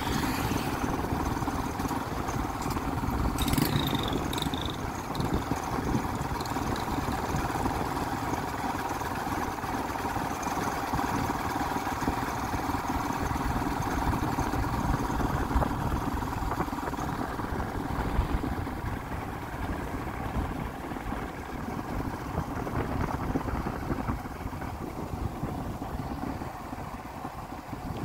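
Motorcycle engine running steadily as it rides along, with a constant rush of road and wind noise; it eases off slightly near the end.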